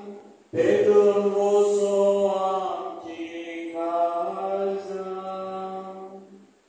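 Slow liturgical chant with long held sung notes. A brief break comes just before half a second in, the pitch moves to a new note about three and a half seconds in, and the singing fades away near the end.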